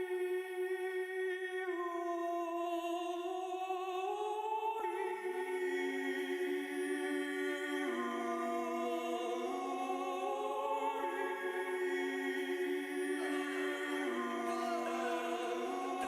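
Layered hummed voices holding slow a cappella chords that shift every few seconds, with no drums or bass.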